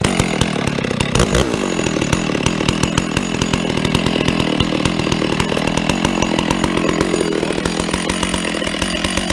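Husqvarna 394, a large two-stroke chainsaw, running steadily at high revs while ripping a log lengthwise on an Alaskan chainsaw mill. It starts abruptly and holds an even pitch.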